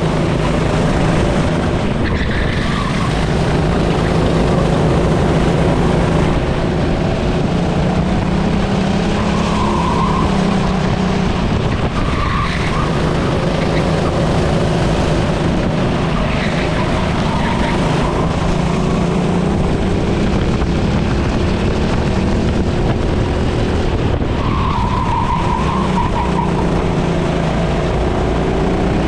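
A racing engine running hard through a practice lap, its revs repeatedly dropping and climbing again, under a steady rush of wind and road noise. Several short, higher-pitched squeals cut in at intervals.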